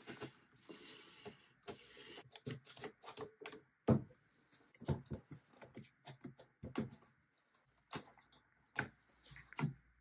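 A clothes iron scraping across wood veneer with a hiss for about the first two seconds, then a run of irregular clicks and knocks as one-handed ratcheting bar clamps are set and tightened on the veneered panel.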